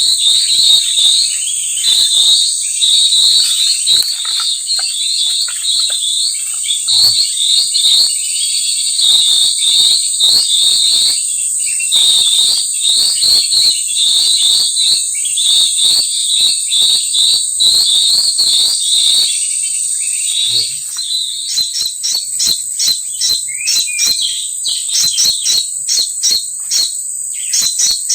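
Small birds chirping in short, quickly repeated phrases over a steady, high-pitched insect drone. About two-thirds of the way in, the chirping gives way to rapid, dry, ticking calls.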